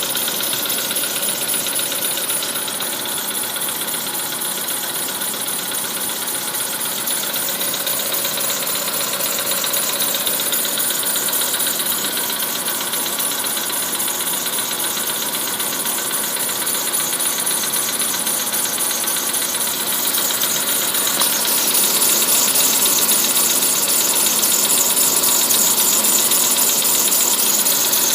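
Volkswagen Polo Sedan engine running from cold, with a steady whistle from under the bonnet over the engine noise. It gets somewhat louder about three quarters of the way through.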